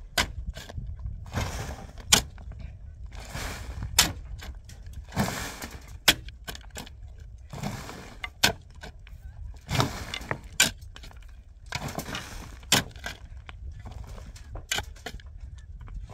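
Hand digging in stony ground with a pick and shovel: a gritty scrape of earth and stones, then a sharp clink of steel on rock, repeating about every two seconds.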